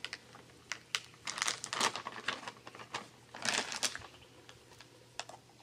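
Plastic bag of chicken jerky dog treats crinkling and rustling as it is handled by hand. The rustling comes in short bursts, mostly about a second in and again past the middle, with small clicks between.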